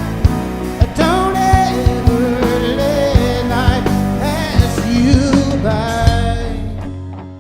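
Live rock band with a singer: a sung melody over drums, guitar and bass, the drum hits sharp and regular. The music dies down near the end.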